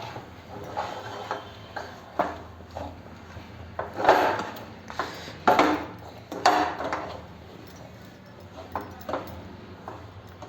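A spatula scraping and knocking against a pan while stirring a thick, dough-like jaggery and flour mixture, in irregular strokes that are loudest around the middle.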